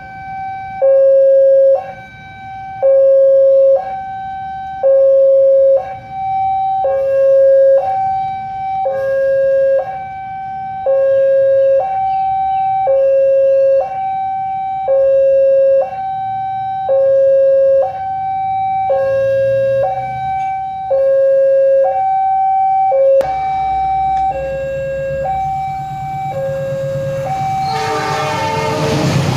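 Railway level-crossing electronic warning alarm sounding, two tones alternating high and low, each held about a second. Near the end an approaching diesel-hauled passenger train's rumble joins in and grows loud as it arrives.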